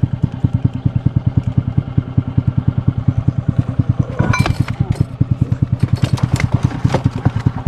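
Small single-cylinder boat engine idling with an even, slow thumping of about eight or nine beats a second. A brief clatter about four seconds in.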